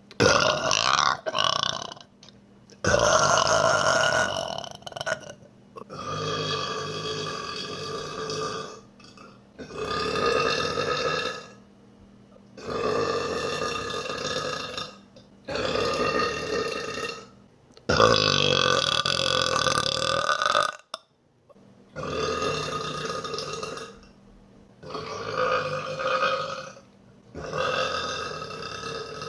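A woman burping over and over, about ten long drawn-out burps in a row. Each lasts one to three seconds, with short pauses between them.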